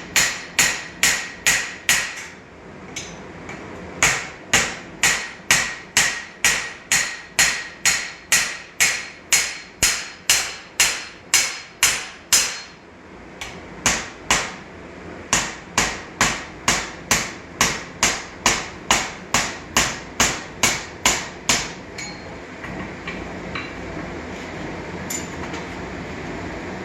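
Hand hammer striking a steel drift set in the hot eye of a forged axe, a steady run of ringing metal-on-metal blows about two to three a second, broken by two short pauses. The blows stop a few seconds before the end, leaving a steady rushing noise.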